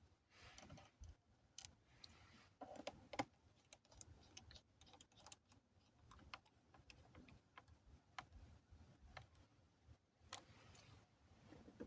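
Faint, irregular small clicks and ticks of hand work on a laptop's screws and plastic parts with a screwdriver, one click a little louder about three seconds in.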